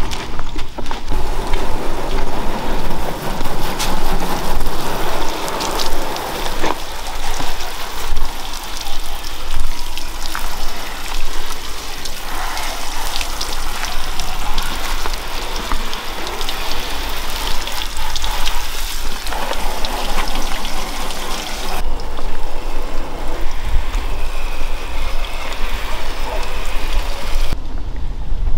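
Water spraying from a garden hose's pistol-grip nozzle and splashing onto a car's bodywork while the car is rinsed. It is a steady hiss and spatter that changes tone about 7 s in and again about 22 s in, as the spray moves over the car.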